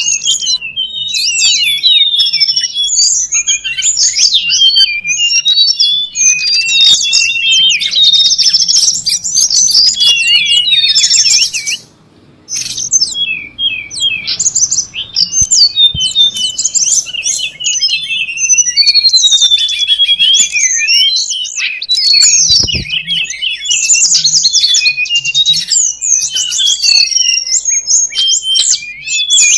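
Lure and master-song recording of tledekan gunung (a small mountain flycatcher): dense, rapid, high-pitched chirping and twittering without pause, the calls overlapping. A brief drop-out about twelve seconds in.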